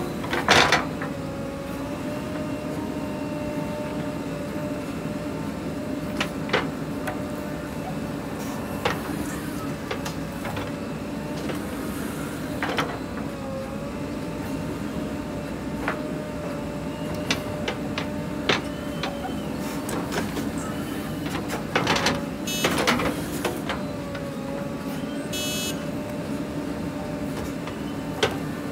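JCB 3DX backhoe loader digging and loading soil: its diesel engine runs steadily under load with a whining hydraulic pump tone that dips briefly now and then. Scattered clanks and knocks come from the bucket and arm working the soil, most of them together about three-quarters of the way through.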